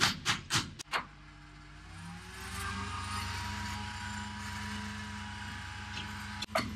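A few sharp hammer blows in the first second, then a boom truck's engine and hydraulics running steadily, the pitch rising briefly as it comes up to speed before settling into an even hum with a faint whine.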